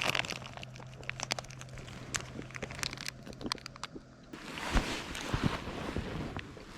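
Plastic snack wrapper being handled and opened, a run of sharp crinkles and clicks. A little over four seconds in, the sound changes abruptly to a fuller rustling with a few thumps.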